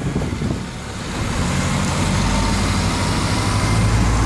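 Motorway driving noise from inside a moving vehicle: a steady low engine drone with tyre and wind noise, growing louder about a second in.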